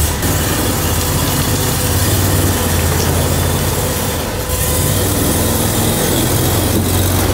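Eight-wheel amphibious ATV on rubber tracks driving across loose gravel: its engine runs with a steady low hum under the clatter of the tracks and the crunch of stones.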